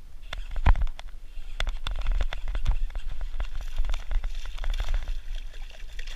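Water splashing as a hooked bass thrashes in surface weeds, strongest about halfway through, over many irregular sharp clicks and knocks.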